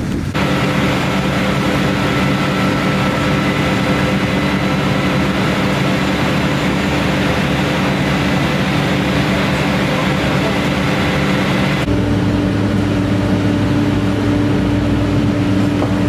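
Large diesel engine running steadily at a constant speed, a fire engine working its pump. About twelve seconds in it gives way to a different, deeper steady engine hum.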